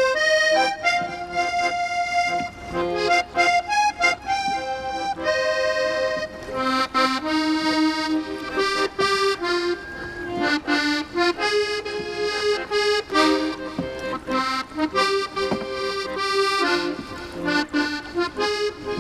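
Instrumental music led by an accordion playing a melody over a steady beat.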